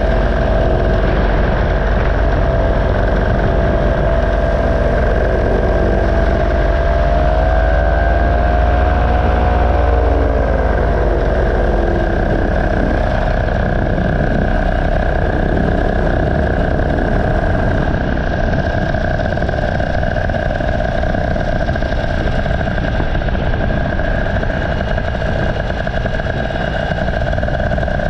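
Paramotor engine running steadily. About a third of the way in its pitch rises briefly and then drops back to an even drone.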